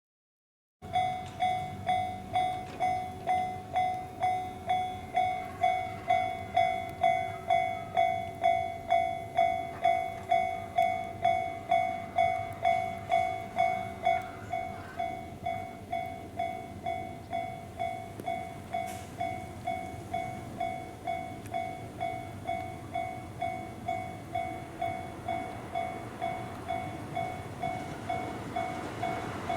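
Japanese railway level crossing's electronic warning bell sounding, a steady clang a little under twice a second, starting suddenly about a second in and dropping in loudness about halfway through. Rumble from an approaching train builds near the end.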